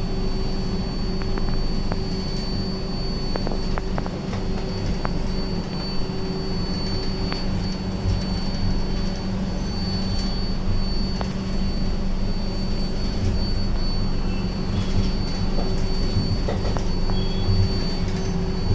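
Running noise of a Shatabdi Express passenger coach on the move, heard in the vestibule between coaches: a steady low rumble with a thin, high, constant whine and occasional light clicks and rattles.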